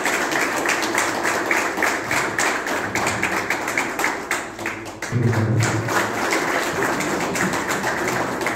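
An audience clapping in a steady rhythm, with a voice heard briefly about five seconds in.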